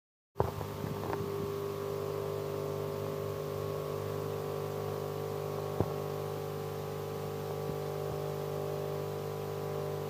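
Philips Saeco Xelsis bean-to-cup coffee machine running with a steady hum while it brews coffee into the milk. The hum starts abruptly, and there is one sharp click a little before the middle.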